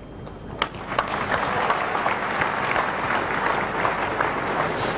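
A large congregation applauding: the clapping builds up about a second in, holds steady, and tails off near the end.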